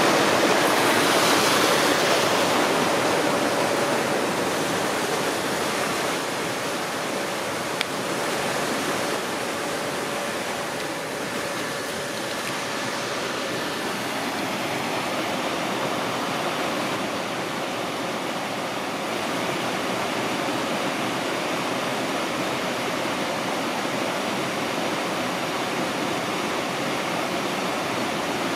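Water rushing steadily through a mill race and waterwheel. It is loudest in the first few seconds and then eases off a little.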